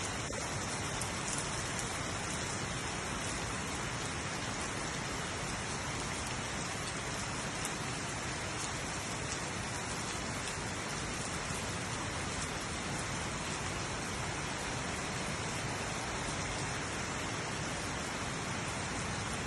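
Steady rainfall: an even hiss of rain with fine pattering drops, holding a constant level throughout.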